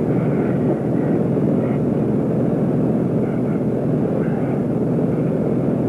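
Steady drone of an aircraft's engine heard from inside the cabin in flight.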